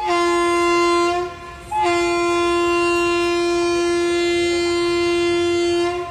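Indian Railways WAG-7 electric locomotive's horn: a loud blast of about a second, a short break, then one long steady blast of about four seconds that stops near the end.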